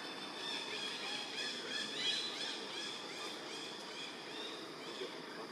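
A run of short, high-pitched chirping animal calls, many in quick succession for about three seconds and then thinning out, over a steady outdoor hiss.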